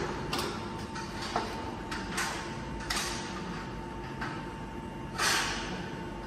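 Steel reinforcing mesh clanking and rattling against the pins of a mesh bending machine as it is laid into place: a string of irregular sharp metallic knocks, the loudest about five seconds in.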